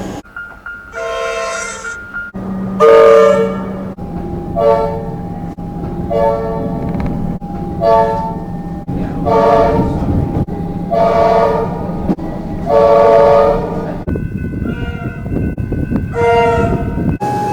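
Comeng electric train horn sounding a series of about nine short blasts, roughly one every second and a half, with a pause near the end, over a steady low hum.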